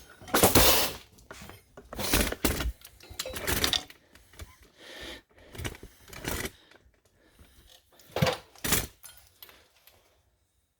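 Irregular metallic clatter and rattling from parts and tools being handled during hand work on a car's front wheel hub assembly: a run of knocks and rattles, louder in the first few seconds and again with two sharp clanks near the end, then falling quiet.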